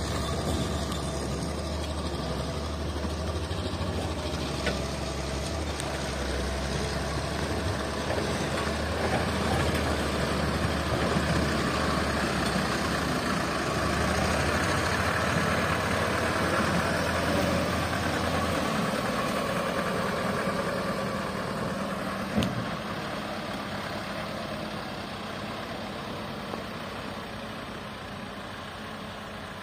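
Mitsubishi dump truck's diesel engine running steadily as the truck drives over a muddy dirt track. The low rumble drops away about two-thirds of the way through and the sound fades toward the end, with one sharp knock a little over twenty seconds in.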